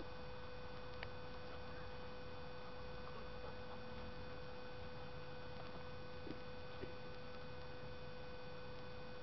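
A faint steady hum at one unchanging pitch, with a few faint ticks.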